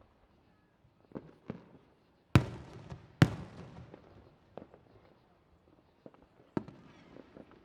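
Aerial fireworks bursting: two loud booms about a second apart near the middle, each trailing off in a rolling echo, among several fainter pops.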